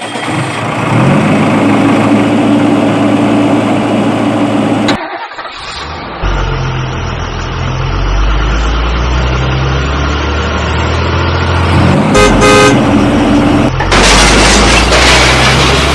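Vehicle horn honking and engine noise, over a repeating low bass line.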